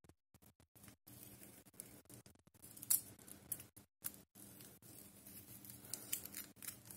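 Small plastic packaging and a strip of component tape handled by hand: faint, crisp rustles and clicks, loudest about three seconds in and again near the end.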